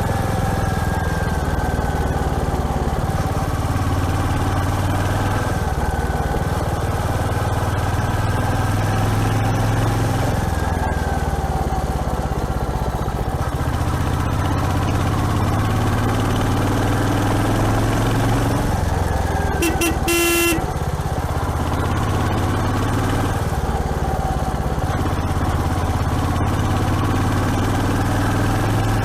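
Royal Enfield Hunter 350's single-cylinder engine running on the road, its revs rising and falling. A horn sounds once for about a second, about twenty seconds in.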